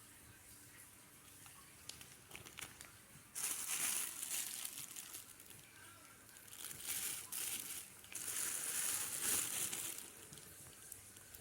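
Plastic shopping bags crinkling as they are handled, in three bursts: about three seconds in, around seven seconds, and a longer one from about eight to ten seconds.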